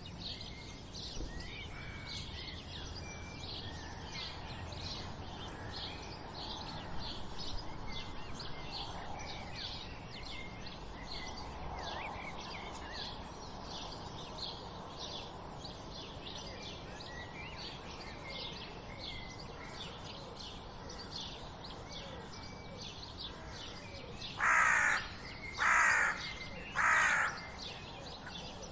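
Morning dawn chorus: many small birds chirping continuously in short, high, repeated notes. Near the end a crow caws loudly three times in quick succession.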